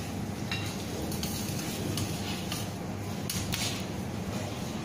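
Scattered clinks and light knocks of kitchen utensils and dishes over a steady low background hum.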